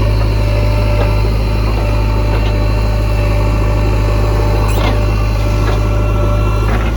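JCB 3DX backhoe loader's diesel engine running steadily with a deep rumble, with a brief high squeal about five seconds in.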